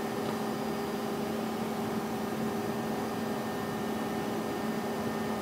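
Steady room hum: an even hiss with a constant low drone and no separate events.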